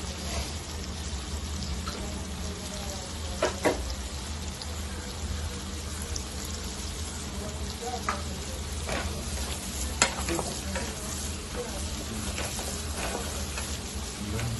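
Blanched green beans sizzling in melted butter in a frying pan while a spatula stirs them, with a few sharp clicks of the spatula knocking against the pan.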